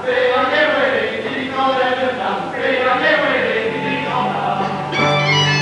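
A choir of voices singing together in chorus. Past the middle a low held note comes in, and other instruments join near the end.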